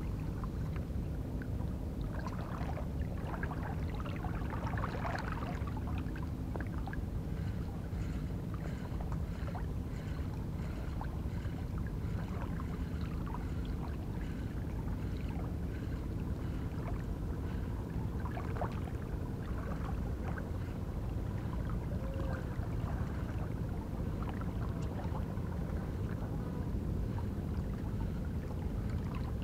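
Steady low outdoor rumble at the water's edge, with faint, scattered small clicks and splashes.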